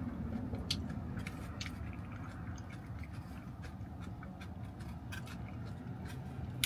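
A person chewing fried chicken with the mouth, scattered short wet clicks and smacks over a steady low hum, with one sharper click near the end.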